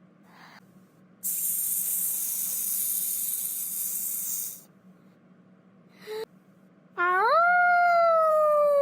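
A voice imitating animal sounds: a drawn-out hiss like a snake, then a long call that swoops up in pitch and slowly falls.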